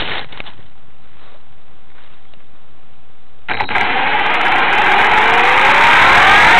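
Align T-Rex 450 Sport electric RC helicopter spooling up: about three and a half seconds in, its brushless motor and rotor start, with a whine that rises steadily in pitch and grows louder.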